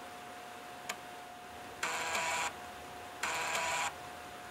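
3.5-inch floppy drive formatting a 720K diskette: a sharp click, then two short buzzing bursts of the head stepping as the drive retries a track, a sign that the disk still has bad sectors. A faint steady whine runs underneath.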